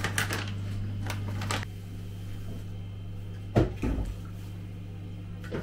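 A few light clicks and knocks over a steady low hum. The loudest are two dull thumps about three and a half seconds in.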